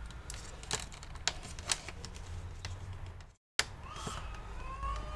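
Light clicks and taps of hands handling the plastic and metal parts of a laptop display assembly, over a low hum. Just over three seconds in the sound cuts to silence for a moment, then an emergency siren comes in, its tone rising then holding.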